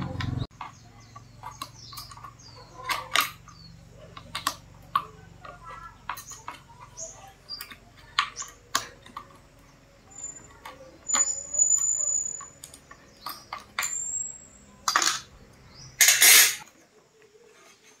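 Irregular clicks and knocks over a low steady hum that cuts off near the end, with a few short high chirps.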